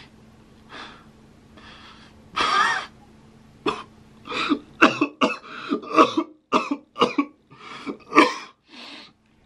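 A man's coughing and throat-clearing, a few separate bursts at first, then a quick run of short breathy coughs from about four seconds in.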